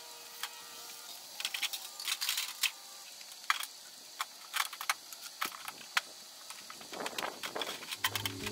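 Faint, irregular clicks and clanks of scrap metal being handled and set down in a pickup truck bed.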